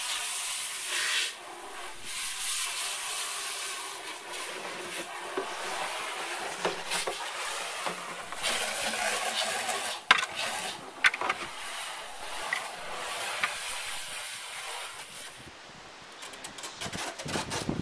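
Continuous hissing, rubbing noise that rises and falls unevenly, with a few sharp knocks about ten and eleven seconds in.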